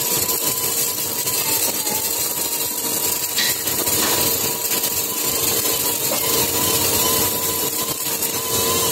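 CO2 MIG welding arc crackling and sputtering steadily as a round seam is welded on an accumulator shell.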